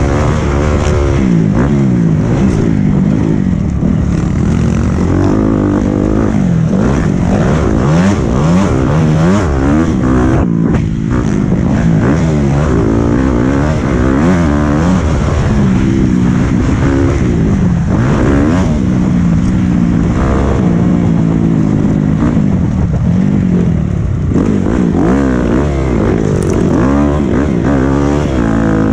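Honda 250 four-stroke motocross bike's engine under hard riding, the revs rising and falling over and over as the throttle is worked, with a brief break about ten seconds in.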